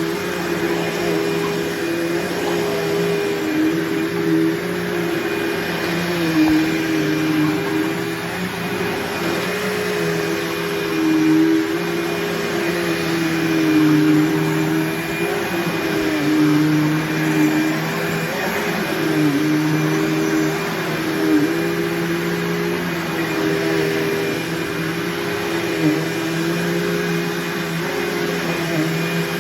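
Bissell PowerForce Bagless upright vacuum cleaner running steadily while vacuuming, its motor hum dipping briefly in pitch every couple of seconds.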